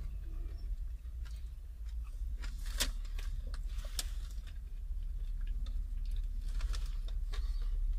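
Close-up chewing and crunching of crispy fried chicken wings: scattered sharp crunches, two louder ones about three and four seconds in, over a steady low rumble.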